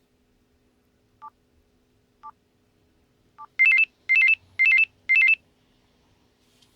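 Hitachi W43H mobile phone: three short two-tone key beeps about a second apart, then a ringtone of four loud short bursts, about two a second, each warbling between two high tones, which then stops.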